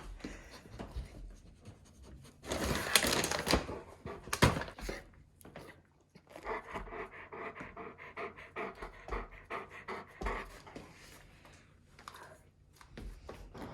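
Dog panting in quick, even breaths, with a burst of rustling and a sharp knock a few seconds in.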